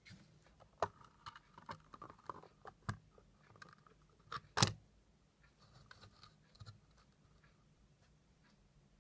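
Hands handling and pulling apart a 3D-printed plastic clock case: a run of small plastic clicks, scrapes and knocks, with the loudest knock about four and a half seconds in, then only a few faint ticks.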